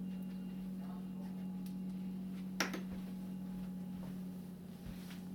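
Quiet room with a steady low hum and one sharp click about two and a half seconds in.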